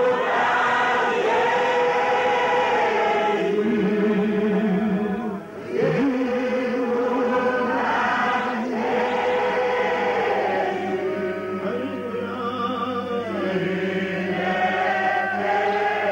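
A man singing a slow worship chant into a microphone, holding long notes with a wavering vibrato. He breaks off briefly about five and a half seconds in, then goes on.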